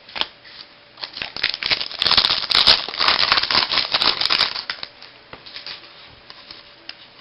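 Trading cards being handled and flipped through: a quick run of rustles and small clicks, loudest for a couple of seconds in the middle, fading to a few light ticks near the end.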